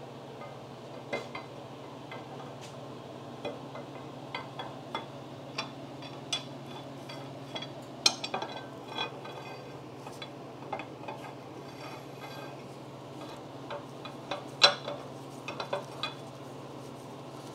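Steel leadscrew of a Cincinnati No. 2 tool and cutter grinder's crossfeed being slid by hand through the saddle's bore, its threads clinking and scraping against the metal at irregular moments, loudest about eight seconds in and again about fifteen seconds in. A steady low hum sits underneath.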